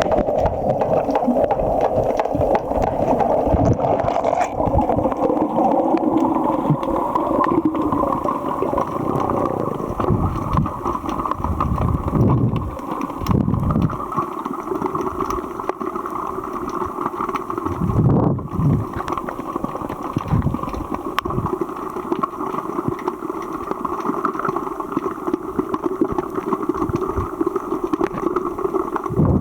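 Muffled underwater noise heard through a sealed camera housing: a steady rushing hiss of moving water, with occasional low thuds and gurgles.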